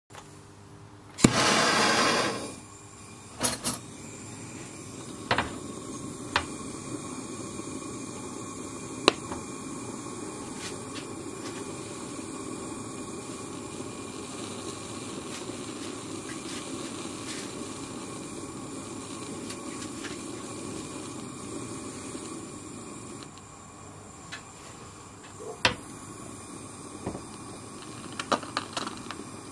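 Handheld blow torch lit with a loud whoosh about a second in, then its flame hissing steadily against an egg, with sharp clicks and pops every few seconds; the hiss drops a little near the end.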